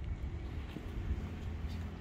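Quiet outdoor background with a steady low rumble, like distant traffic; no tool is working.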